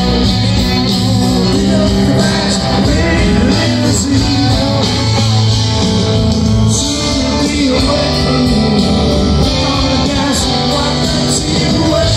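Live rock band playing through a stadium sound system, heard from within the crowd: amplified guitars and bass with a singing voice over them.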